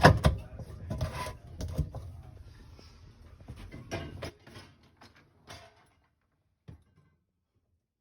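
Clattering and knocking of hard parts being handled, as a removable piece of a coffee maker is taken out and handled. There is a busy run of knocks for the first four seconds or so, then a few single clicks.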